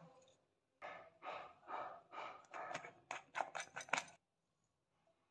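Faint handling of a small glass jar of dry breadcrumbs with a spoon: a run of short scrapes that come quicker and sharper, ending in a few clicks, about four seconds in.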